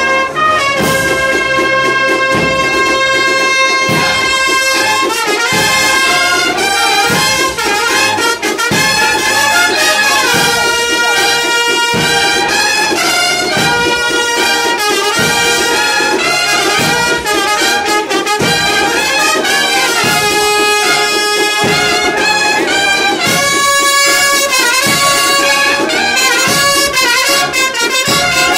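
Brass band playing a Holy Week processional march: trumpets and trombones holding long melodic notes over a steady drum beat.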